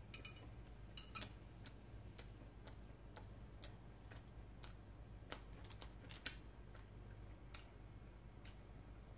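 Faint, uneven clicks and crackles, about two a second, from eating at a table: a fork on a plate and the crust of a freshly baked corn bread being torn apart by hand. A low steady hum sits underneath.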